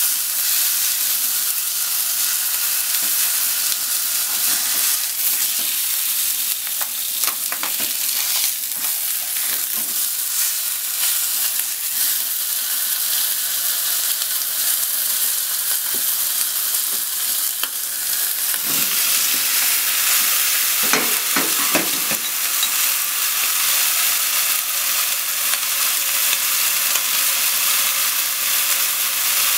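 Chicken thigh frying skin-side down in oil in a frying pan: a steady sizzle with faint taps of wooden chopsticks against the meat and pan. About two-thirds of the way through comes a short run of clattering knocks in the pan.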